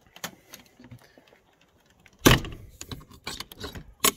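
Camper entry door being shut from outside. A loud thump about halfway through is followed by rattling knocks, then a sharp click near the end as the door's paddle latch is pushed home.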